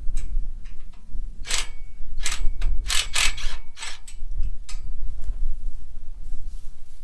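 Metal parts of a scrap rabbit-cage table clanking and scraping as it is taken apart: a string of short, sharp clanks, busiest about three seconds in, over a low rumble.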